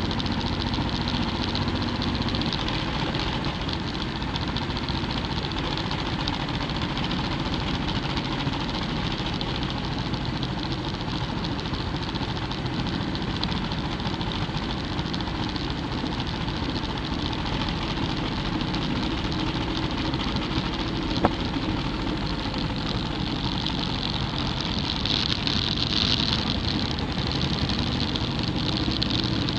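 Motorcycle engine running at cruising speed, with wind rushing over the bike-mounted microphone. There is one sharp click about two-thirds of the way through, and the wind hiss grows louder near the end.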